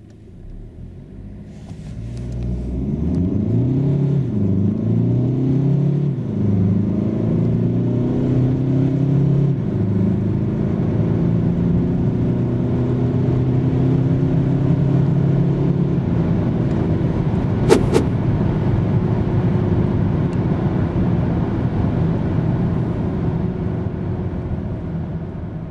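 Hyundai Tucson's 1.7-litre turbodiesel four-cylinder pulling hard from a standstill, heard from inside the cabin: the engine note climbs and drops back at each quick upshift of the seven-speed dual-clutch gearbox, several times in the first ten seconds, then settles into a steady drone at motorway speed. A brief sharp click comes near the end.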